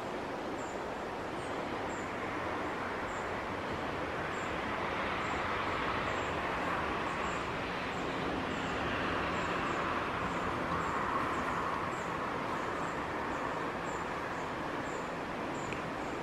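Steady outdoor background noise that swells and fades in the middle, with a faint high chirp repeating a little more than once a second.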